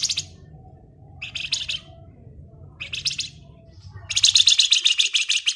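A flamboyan bird giving rapid rattling trills in its 'ngebren' style. There are three short bursts, then a longer, louder trill from about four seconds in. A faint low hum lies underneath.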